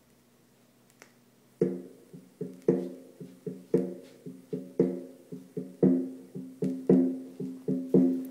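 Music played through a pair of vintage JBL C46 Minigon loudspeakers driven by McIntosh MC60 tube amplifiers, with no subwoofer, starting about a second and a half in: a plucked-string tune over a steady, regular beat of sharp percussive notes.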